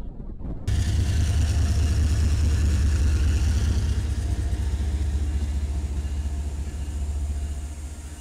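Diesel locomotive running with a steady, deep engine rumble. It starts abruptly under a second in and eases slightly toward the end.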